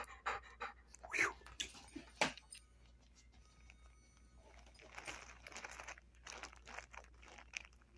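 A large dog nosing along the carpet, with short sharp crunchy clicks and sniffs, a longer rush of sniffing about five seconds in.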